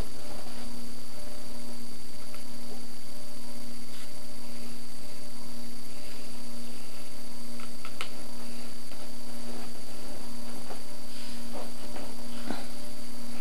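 Steady electrical mains hum on the recording. A few faint taps come as the small metal survival-kit tin is handled.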